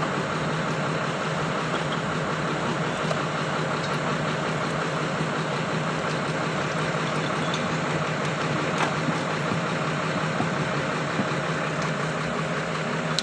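Hitachi excavator's diesel engine idling steadily, with a few faint clicks over it.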